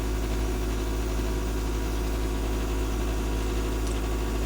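Steady low mechanical hum with a constant drone of several even tones, unchanging throughout.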